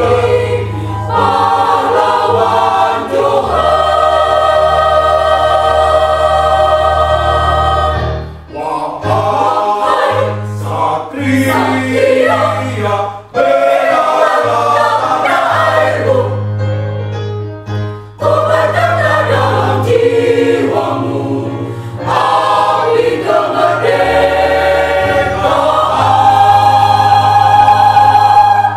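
Mixed choir of women's and men's voices singing in harmony, moving through sustained chords and building to a loud held final chord that cuts off sharply at the end.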